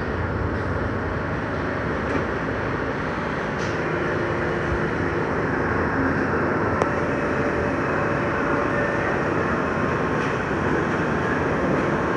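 R62A subway car running along the track, heard from inside the car: a steady rumble of wheels on rail.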